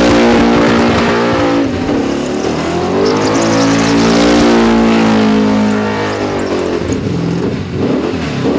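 Supercharged, methanol-fuelled engine of a VK Commodore burnout car held at high revs with the tyres spinning. The pitch dips and climbs again about two seconds in, then falls and wavers near the end, over a hiss of tyre noise.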